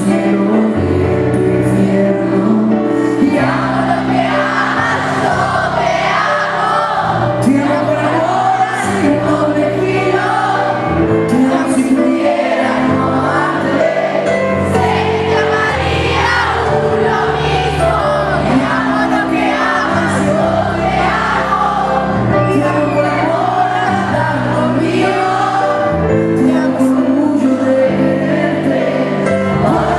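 A man singing live into a microphone with piano accompaniment, heard through a concert sound system.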